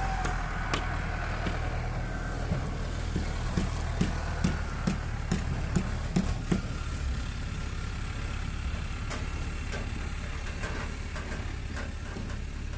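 A steady low engine-like hum, with a string of sharp clicks and light knocks from about two and a half to seven seconds in.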